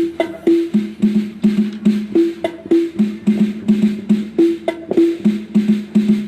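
Tom-tom drums played in a quick, steady rhythm, about three to four strokes a second, moving between a lower and a higher pitched drum.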